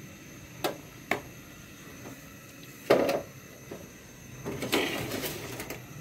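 Handling sounds in a kitchen beside a pan of heating oil: two light clicks about a second apart, a heavier knock about three seconds in, then a second or so of rustling and scraping near the end.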